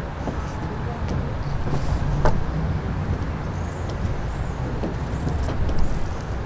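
Steady low rumble of road traffic, with a few faint light clicks and knocks.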